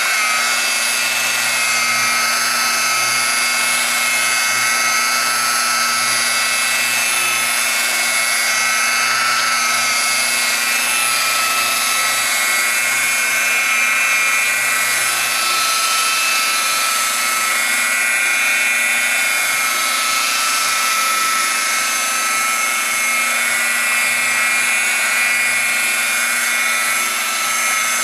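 Electric buffer (polishing machine) running steadily as its pad works polish over sanded car paint: a continuous whine whose pitch wavers slightly as it is pressed into the panel.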